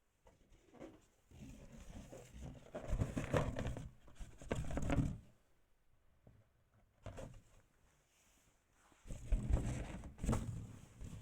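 Toys being handled and moved about, rustling and clattering in two spells: one from about two to five seconds in, and another near the end.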